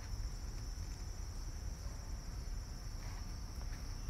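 Insects chirring outdoors: a steady, high-pitched drone with no break, over a low rumble.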